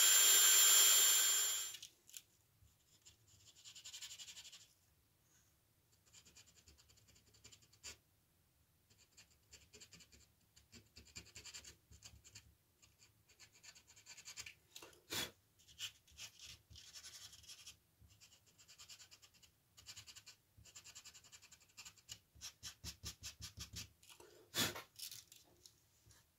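A Dremel-type rotary tool whines steadily for about the first two seconds and cuts off abruptly. Then comes the soft, scratchy rubbing of sandpaper worked by hand along the rough carved edges of the wood, in short strokes that come quickly and a little louder near the end, with a couple of sharp clicks.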